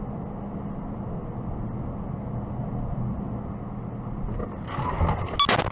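Steady hum and rumble of a car driving, heard from inside the vehicle through a dashcam microphone. Near the end it swells into a louder rush with a few sharp clicks.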